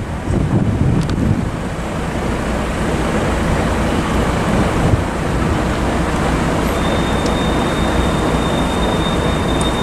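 Steady rumble of road traffic and wind on the microphone, gusting in the first second or so. About seven seconds in, a thin, high, steady whine joins it.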